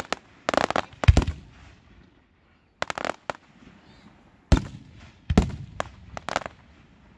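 Aerial fireworks shells bursting overhead: irregular sharp bangs and clusters of crackling pops, the loudest about a second in, with another run of bangs from about four and a half seconds in.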